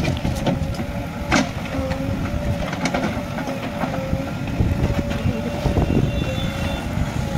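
JCB 3DX backhoe loader's diesel engine running under load with a steady whine as the backhoe digs out a tree stump. Sharp knocks of the bucket striking stones and roots sound through it, the loudest about one and a half seconds in.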